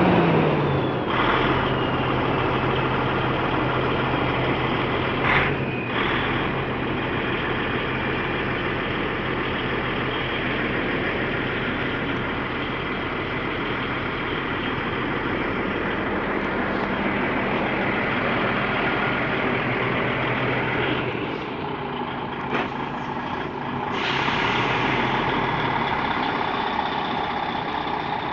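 DAF XF truck's diesel engine idling steadily, with a short sharp sound about five seconds in and a louder, hissier stretch of running near the end.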